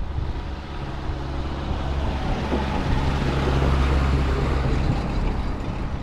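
Zetor tractor's diesel engine running at a steady speed as the tractor drives past, getting louder to a peak about three to four seconds in and then easing off.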